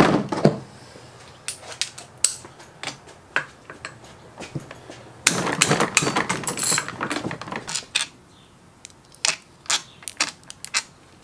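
Loose steel bolts clinking and rattling as they are worked out by hand from a Honda B-series aluminium transmission case and gathered up. There is a sharp clink at the start, then scattered clicks, and a longer stretch of dense rattling about five seconds in.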